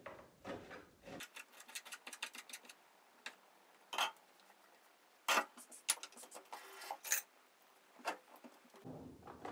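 Plastic parts of a kitchen food processor clicking and knocking as it is assembled: a quick run of clicks about a second in, then single knocks every second or so.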